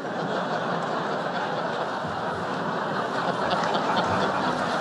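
Large audience laughing together, a dense, steady wash of laughter that breaks out at once and holds.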